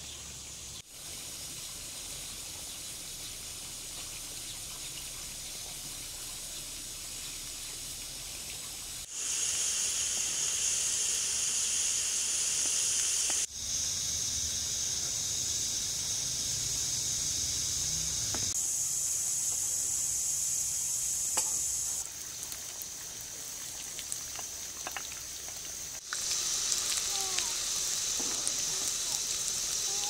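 Onions frying in oil in a pan, a steady sizzle that jumps louder and softer at several edits, with a few small taps and scrapes of a wooden spatula.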